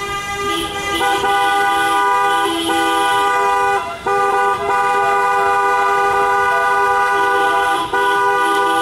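Several car horns held down together in long, steady celebratory blasts, breaking off briefly about four seconds in and again near the end.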